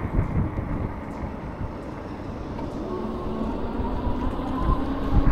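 Wind rumbling on the microphone, with a steady machine-like hum that comes in about halfway through and rises slightly in pitch.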